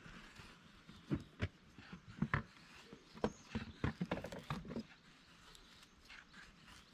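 A run of short, irregular knocks and taps, clustered between about one and five seconds in, over a faint outdoor background.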